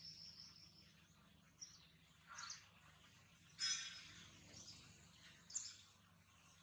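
Faint outdoor ambience with a few short, high bird chirps, the loudest about three and a half seconds in.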